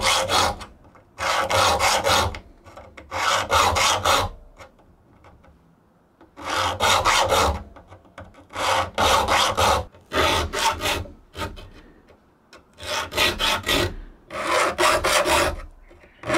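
Triangular saw file being pushed across the steel teeth of a Spear and Jackson crosscut hand saw: a repeated rasping stroke about a second long, with short pauses between strokes and one longer pause about a third of the way through, as the saw is sharpened.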